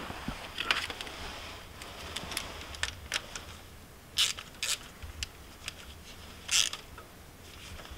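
Socket ratchet clicking in short runs as a nut on a small electrical terminal is turned, with a few sharper bursts of clicks near the middle and again about two-thirds of the way through.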